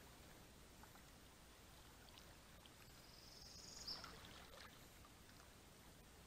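Near silence: faint outdoor background with a few faint ticks, and a brief faint high sound about four seconds in.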